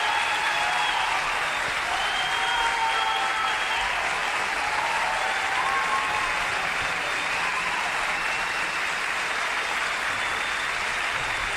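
Concert audience applauding steadily, a dense clapping sound.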